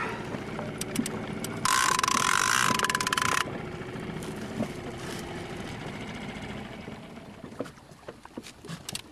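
Boat engine running steadily while a big-game fishing reel is worked. About two seconds in, the reel's ratchet gives a loud, rapid run of clicks lasting under two seconds.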